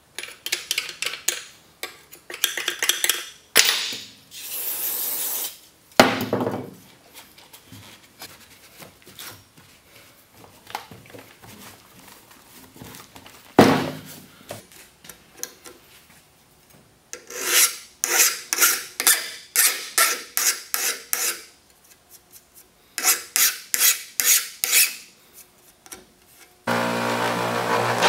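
Quick scrubbing and rubbing strokes in bursts as a small brush and a rag clean grime off a Stihl chainsaw's plastic housing. Near the end, an electric bench chain-sharpening grinder starts and runs steadily.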